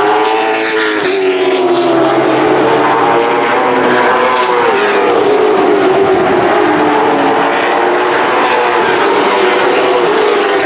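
Several late model stock cars' V8 engines running on the track, overlapping, their pitch rising and falling as they rev and pass by.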